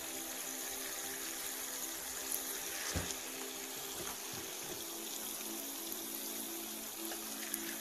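Sea bream simmering in sauce in a frying pan, a steady sizzling and bubbling, with a knock of the silicone spatula against the pan about three seconds in.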